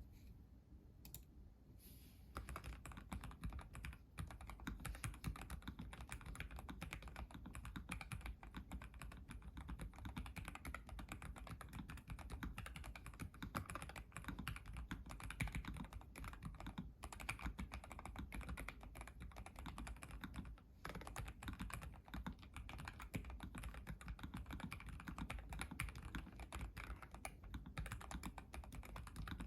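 Typing on a NuPhy Air75 mechanical keyboard with lubed Gateron Red linear switches: a fast, steady run of key clacks that starts about two seconds in, with a brief pause now and then.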